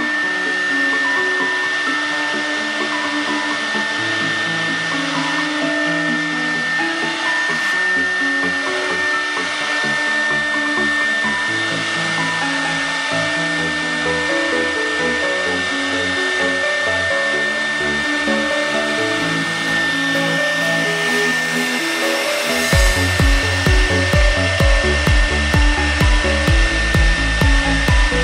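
CNC wood router spindle running with a steady high whine as it engraves lettering into a board, under background music; a heavy pulsing beat of about two a second comes in near the end.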